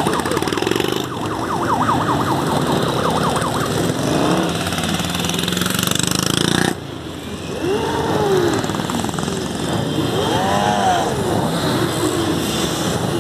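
Motorcycle engines running and revving as a group of bikes pulls away, with a fast-warbling siren over them in the first few seconds. In the second half, single bikes rev up and back down as they ride past.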